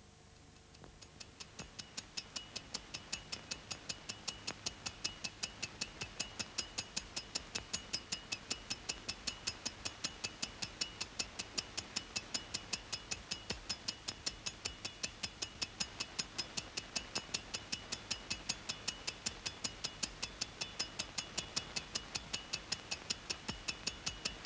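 A clock ticking rapidly and evenly, about four sharp ticks a second, fading in over the first two seconds and then holding steady.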